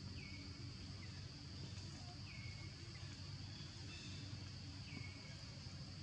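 Forest ambience: a steady high-pitched insect drone with a low rumble underneath, while a bird calls three times, each call a short note that falls and then holds.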